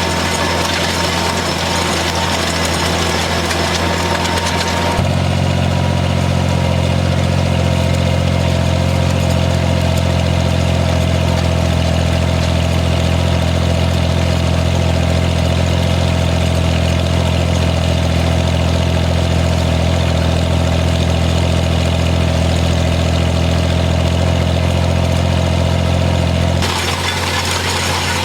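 Farmall 460 tractor engine running steadily while working in the hayfield. The sound changes abruptly about five seconds in, to a fuller engine note with less hiss above it, and changes back near the end.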